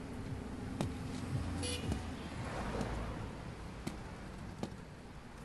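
Street ambience: a steady low rumble of road traffic, with a few sharp clicks and a brief high toot about two seconds in.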